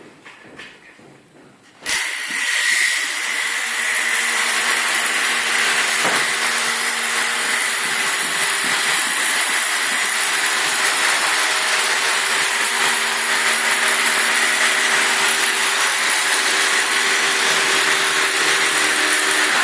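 An electric power tool's motor starts suddenly about two seconds in and runs at a steady speed: a loud hiss with a steady high whine.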